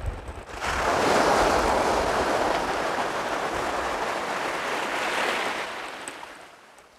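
Surf washing in on a pebbly beach: a rush of breaking water swells up about half a second in, holds, then fades away near the end.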